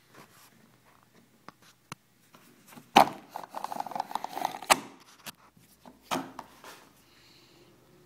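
A buckle being worked: a sharp click about three seconds in, then a second and a half of fast clicking rattle ending in another sharp click, and one more click a little after six seconds.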